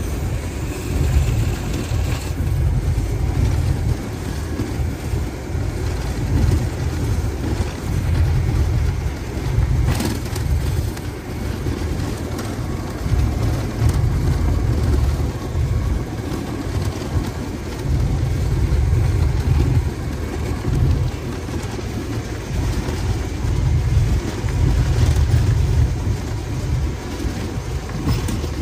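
GE U20 diesel-electric locomotive running under way, a steady heavy rumble of engine and running gear, with wind buffeting the microphone held out of the cab window in uneven low gusts. A single sharp click sounds about ten seconds in.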